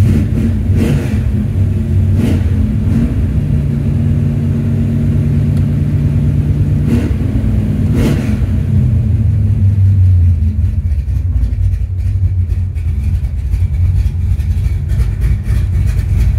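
1969 Dodge Super Bee's 440 Six Pack V8 running during a cold start warm-up, heard from inside the cabin, its engine speed stepping up and down a few times.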